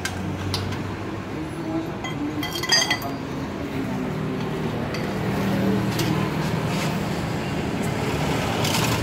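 Metal tools and parts clinking: a few sharp clicks, with a quick cluster of ringing clinks about three seconds in, over a steady low background hum.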